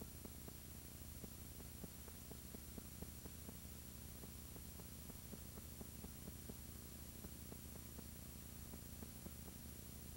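Faint steady electrical hum with hiss and light irregular crackling ticks: the noise floor of a blank stretch of the recording.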